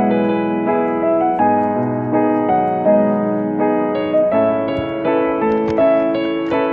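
Background music: a solo piano piece playing a steady melody over a chord accompaniment.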